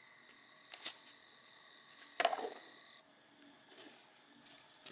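Quiet workshop room tone broken by a few faint handling sounds: a small click about a second in and a brief knock or rustle just after two seconds.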